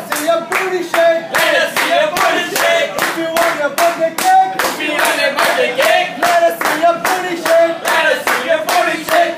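A group clapping in a steady rhythm, about three claps a second, while singing together a cheer-style birthday song.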